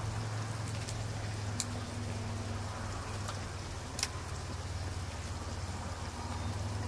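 Steady outdoor background noise: a low hum under an even hiss, with a couple of faint sharp clicks, one about a second and a half in and one about four seconds in.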